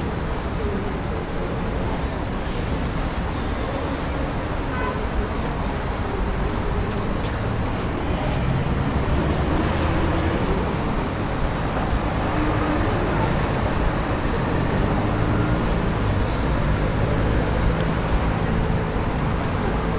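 Steady road traffic of a busy city street, a continuous rumble and hiss of passing cars that grows slightly louder about halfway through.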